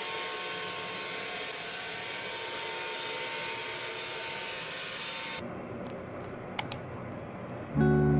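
iRobot Roomba robot vacuum running over a wood floor, a steady whir with thin steady tones, cutting off about five seconds in. Two sharp clicks follow, then acoustic guitar music starts near the end.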